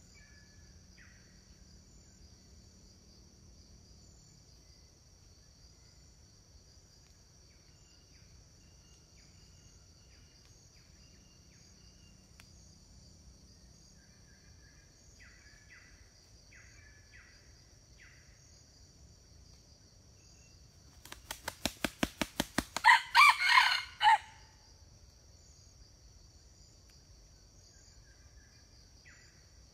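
A red junglefowl rooster beats its wings in a quick run of about a dozen flaps, then gives one short crow, about two-thirds of the way through. A steady high insect drone and faint bird chirps run underneath.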